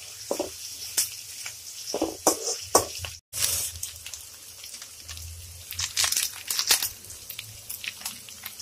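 Onions, mint and curry leaves sizzling in hot oil in a metal kadai while a spoon stirs and scrapes against the pan in short strokes. The sound cuts out briefly about three seconds in.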